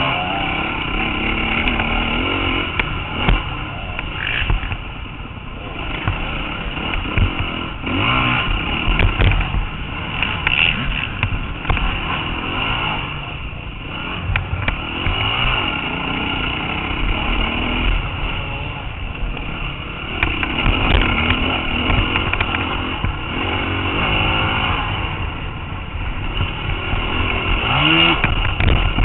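Dirt bike engine revving up and down again and again with the throttle, pitch rising and falling, with scattered knocks and clatter over rough ground.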